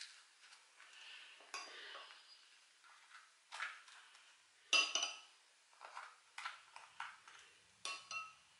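Spoons clinking and scraping against a ceramic cup and bowls, spreading harissa and filling fried rolls. There are several separate strikes; the loudest, a little under five seconds in and again near the end, ring briefly.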